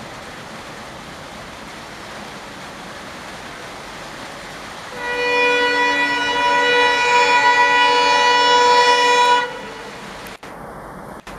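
Diesel locomotive horn sounding one long blast of about four and a half seconds, starting about five seconds in and cutting off sharply, over the steady hiss of heavy rain.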